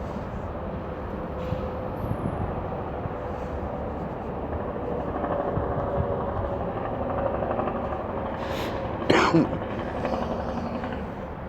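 Steady low background rumble with a faint steady hum, and a short throat-clearing about nine seconds in.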